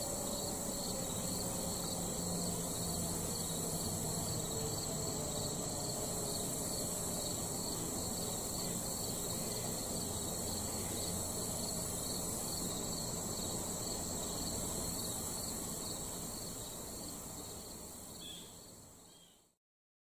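Crickets chirring steadily, with the tone of a distant outdoor warning siren faintly gliding down as it winds down during the first several seconds. The sound fades out about 19 seconds in.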